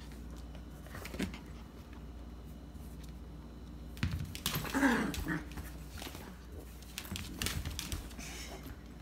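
Yorkshire terrier puppy moving about on a hard floor: light knocks and scuffs, and about five seconds in a short whine that falls steeply in pitch.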